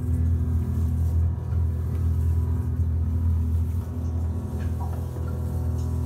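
Deep, steady drone from a live sound-art piece: a low rumble with sustained tones held above it.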